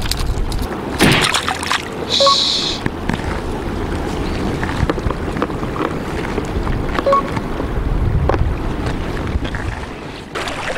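Wind buffeting the action camera's microphone over water lapping at the reef rocks, with a short rustle about a second in.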